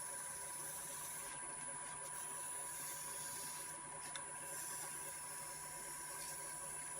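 Wood lathe running steadily while sandpaper is held against the spinning wood-and-resin bottle stopper, giving a steady hiss over the motor's faint whine. The hiss thins out briefly twice.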